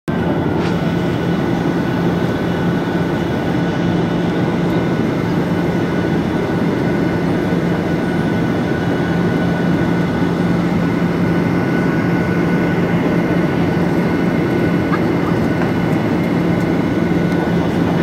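Jet airliner's engines and the rush of air heard inside the passenger cabin on approach: a steady, even roar with a constant low hum and a fainter high whine.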